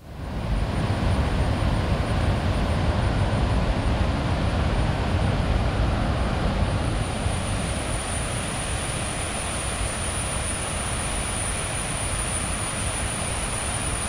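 Rushing mountain river and waterfall water: a steady, continuous roar of white water with a heavy low rumble, and a thin steady high tone above it.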